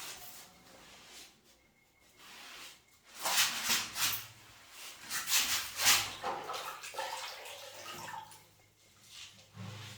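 Wet rag wiping and scrubbing fresh white cement off the floor around a newly set toilet base, in uneven strokes that are loudest in a few bursts around the middle.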